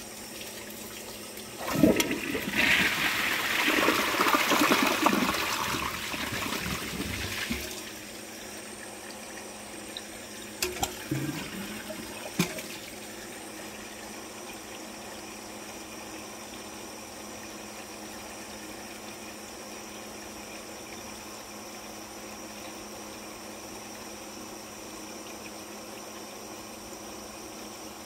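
Kohler Embrook toilet flushing: a sudden loud rush of water that lasts about six seconds, then a few gurgles and knocks as the bowl settles, then a steady faint hiss.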